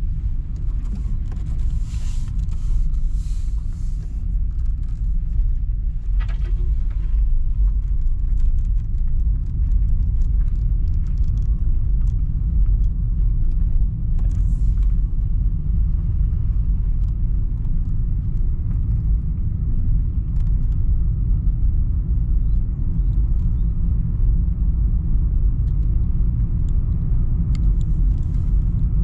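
Steady low road rumble inside a moving car's cabin, with a few brief rustles over the top.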